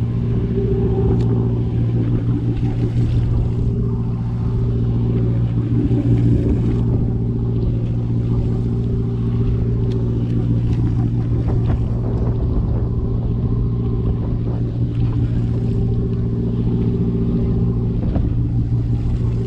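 Boat engine running steadily under way, a constant low drone with the rush of water and wind over it.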